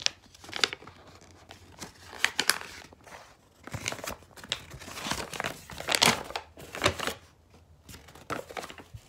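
Printed paper rustling and crinkling as a sheet is handled and unfolded, a string of uneven crackles, loudest about six seconds in.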